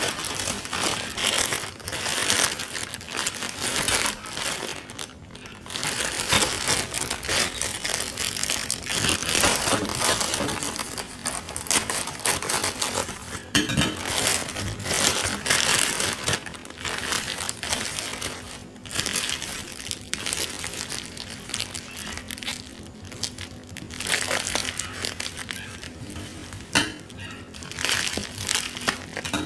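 Plastic courier pouch and bubble wrap being crinkled, rustled and torn open by hand, a continuous crackling of handled plastic.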